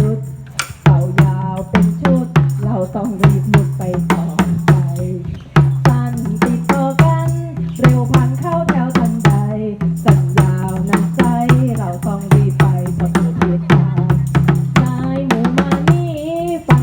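A sung song with a steady drum beat and jingling tambourine-like percussion: a children's teaching song about scout whistle signals.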